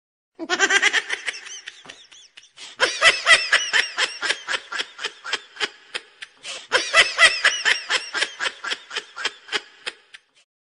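A person's high-pitched laughter in quick, rhythmic peals of about five a second, coming in three runs and fading out near the end.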